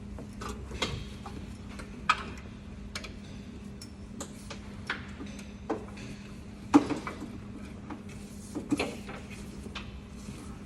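Irregular sharp clicks and knocks of tools and parts being handled during a fuel-line repair, the loudest about two seconds in and again near the seven-second mark, over a steady low hum.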